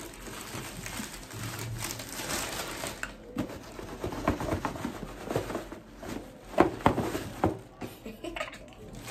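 Plastic shopping bag rustling and crinkling as a shoebox is pulled out of it, followed by a run of light knocks and taps as the cardboard box is handled.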